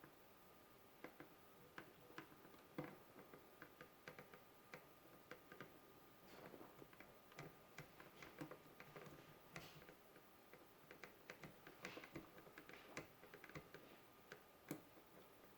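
Faint, irregular light clicks and taps of small toy parts and tools being handled, over a faint steady hum.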